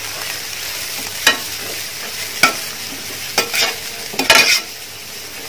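Shredded cabbage and onion sizzling in hot oil in a frying pan as a spatula stirs them, with several short scrapes and knocks of the spatula against the pan.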